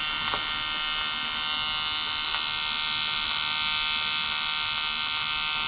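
Welding arc buzzing steadily at a high pitch while an elbow is welded onto an intercooler pipe.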